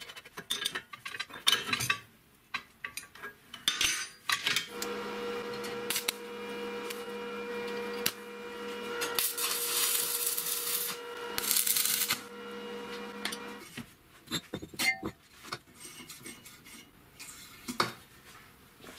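Metal clinks and knocks, then an angle grinder with a cut-off disc, mounted in a homemade chop-saw stand, starts about five seconds in and runs at a steady pitch. For about three seconds its disc cuts into steel with a loud grinding rush. The motor stops a few seconds after the cut, and the metal clinks and knocks go on.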